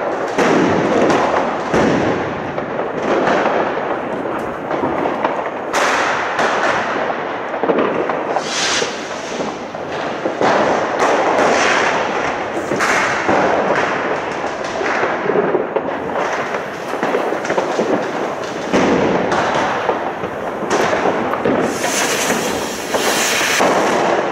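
Fireworks and firecrackers banging and crackling without a break, many blasts overlapping. Near the end a ground firework close by sprays sparks with a loud hiss.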